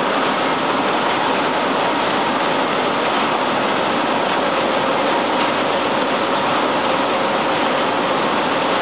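Steady din of a running buckwheat processing line: electric-motor-driven grain machinery such as bucket elevators, heard as a dense, even rushing noise with a faint steady whine running through it.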